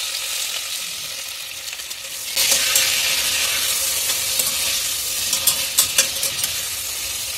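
Raw potato pieces sizzling in hot oil in a steel pressure cooker, the sizzle growing louder about two and a half seconds in, while a steel spatula stirs them. The spatula scrapes and clicks against the pot a few times a little past the middle.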